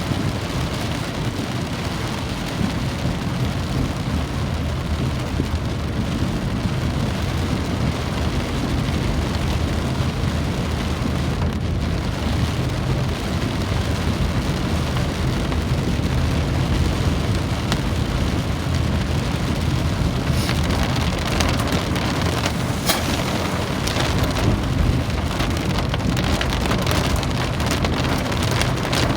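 Steady rain falling, with a low rumble under it. From about two-thirds of the way in, sharper taps of single drops come through, one louder than the rest.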